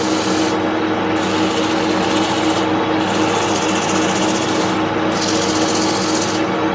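Wood lathe running with a steady motor hum while a turning tool cuts the spinning mahogany in passes of one to two seconds, a hissing scrape that stops briefly between passes.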